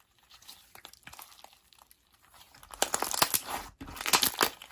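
Slime being squished by hand, giving crackling, clicking pops: sparse and faint at first, then dense and much louder after about two and a half seconds.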